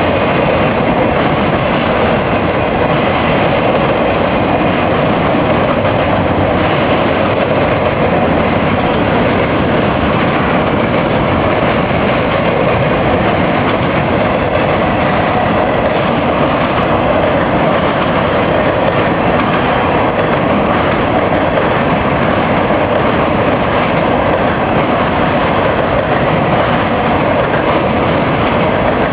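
A train passing: a steady, unbroken noise of wheels and cars on the rails that holds the same level throughout.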